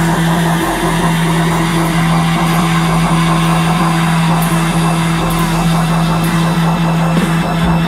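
Loud live rock band sound: a steady, low droning note held under a dense wash of noise, which cuts off near the end.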